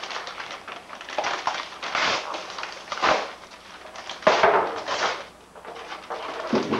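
Printed gift-wrapping paper being torn and crumpled off a present by hand: a run of ripping and crinkling rustles in several surges, the loudest about a second and a half before the end.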